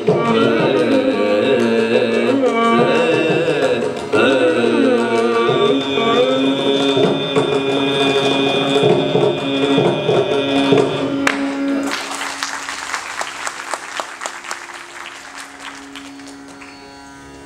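Carnatic vocal music: a male voice singing with violin and mridangam over a steady tambura drone. The music ends with a sharp final stroke about eleven seconds in. A dense, fading patter follows while the tambura drone carries on.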